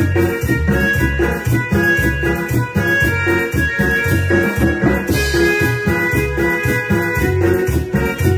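A small live band playing: a drum kit keeps a steady beat under keyboard notes and a bass line, with a cymbal crash about five seconds in.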